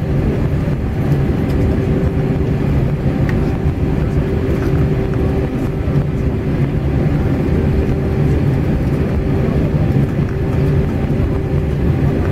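Cabin noise of an Airbus A320 taxiing after landing: engines at idle with a steady hum over a low, even rumble.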